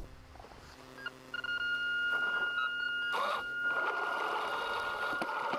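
Electric drive motors and 3D-printed gearboxes of an RC tank running, a steady high-pitched whine that starts about a second in. A rougher mechanical noise joins it about three seconds in.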